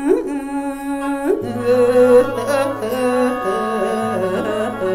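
Khaen, the Isan bamboo free-reed mouth organ, playing a melody of stepped notes over held drone notes. A low held note joins about one and a half seconds in.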